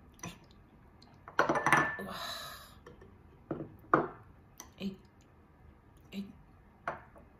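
Ceramic bowls and chopsticks clinking and knocking against each other and the wooden table: a loud cluster of knocks with a brief ring about one and a half seconds in, a short scrape after it, then single knocks spaced about half a second to a second apart.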